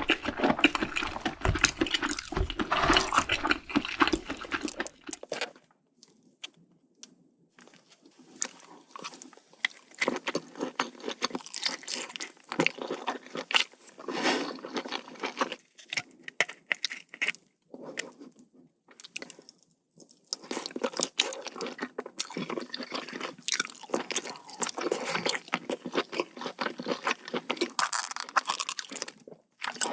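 Close-miked chewing and crunching of king crab: a dense run of short, irregular crackles and clicks, broken by a few brief pauses between bites.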